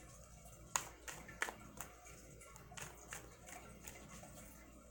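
A tarot deck being shuffled by hand: soft, irregular clicks and taps of the cards against each other.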